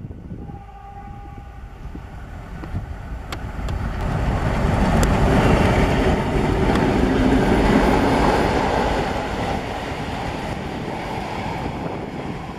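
A TEM2 diesel shunting locomotive passes close by at low speed hauling a work train. Its diesel engine grows loudest as the locomotive goes past a few seconds in, followed by the steady rumble of the wagons rolling by on the rails, with a few sharp clicks.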